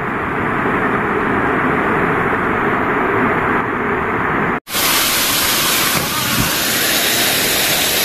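Waterfall's rushing water, a loud steady noise. A little past halfway it cuts out for an instant and comes back brighter and hissier.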